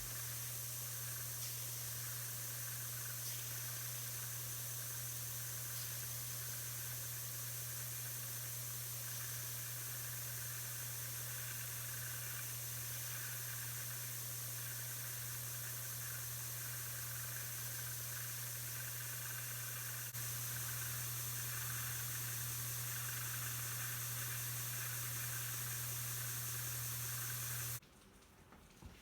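Belt sander running steadily, a low motor hum under the hiss of the moving abrasive belt, as small wooden pegs are fed into it to grind pyramid tops. It cuts off abruptly near the end.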